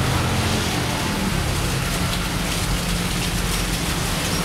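High-pressure gas wok burner running at full flame: a steady hiss with a low rumble underneath.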